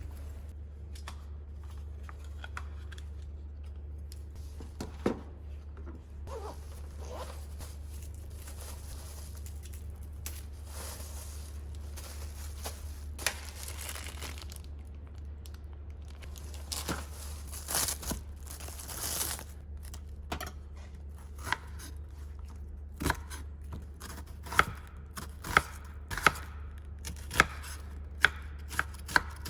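Ingredients being readied for cooking: a few stretches of tearing and crinkling, then a kitchen knife chopping on a cutting board in single strokes, about one a second, starting past the middle. A steady low hum runs underneath.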